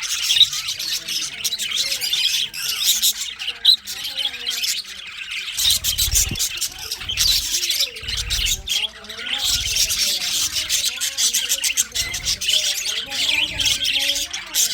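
A flock of budgies chirping and chattering, a dense, continuous warble of squeaky calls. From about halfway through there are also low muffled pulses about once a second.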